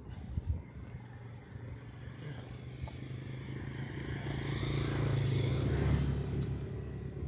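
A motor vehicle's engine approaching and passing at a steady pitch, growing louder to its closest point about five to six seconds in and then fading slightly.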